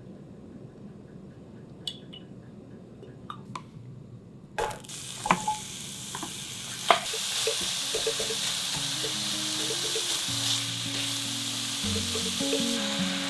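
Food goes into a hot pan about four and a half seconds in and sizzles steadily, with a few sharp clicks of a utensil against the pan. Before that, only a few faint clicks.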